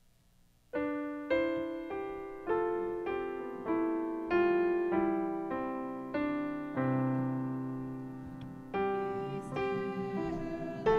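Piano playing the slow introduction to a worship song: single notes struck about two a second, each ringing and fading away. It starts after a near-silent first second, and a lower note is held for about two seconds from around seven seconds in.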